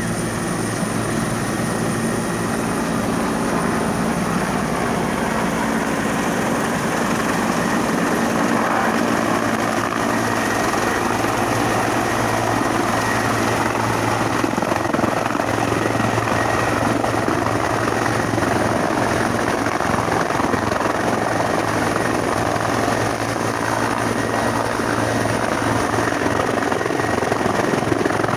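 Helicopter hovering to draw water from a lagoon, its rotor and turbine engine running steadily. There is a dense, even rotor noise with a thin, steady high whine over it.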